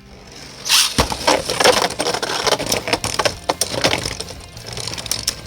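Two Beyblade spinning tops launched into a plastic stadium just before a second in, then rattling and knocking against each other and the stadium walls many times as they spin. One of them runs on a metal-tipped Orbit Metal driver. Background music plays under it.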